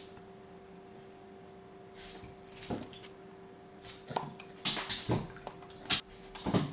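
Pembroke Welsh Corgi barking excitedly for a held-up treat: a handful of short barks in the second half, over a steady low hum.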